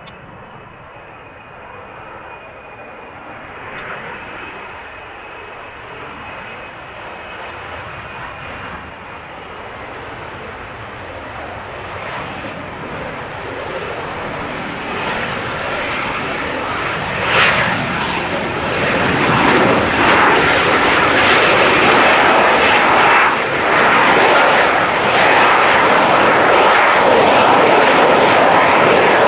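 F-35B Lightning II jet, its single turbofan engine growing steadily louder over about twenty seconds as the aircraft approaches, then holding loud. A faint high whine shows at first and is soon buried in the rising noise.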